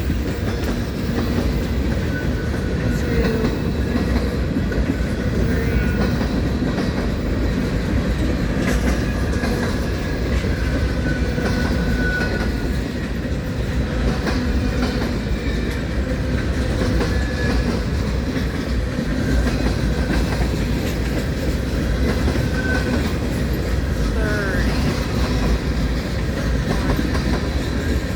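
Freight cars of a mixed manifest train rolling slowly past, a steady rumble of wheels on rail with clickety-clack over the rail joints.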